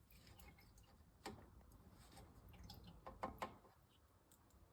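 Near silence with a few faint clicks and knocks, about a second in and again around three seconds in, from a plastic water jar and descaling pouch being handled.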